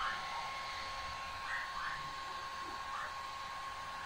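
Steady whir of a Lescolton T009 IPL hair removal handset's cooling fan running, with a thin steady tone above it.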